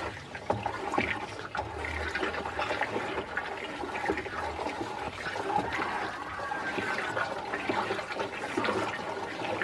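Watery jeevamrut slurry of cow dung, cow urine and water sloshing and swirling in a plastic drum as it is stirred round with a stick, with small irregular splashes throughout.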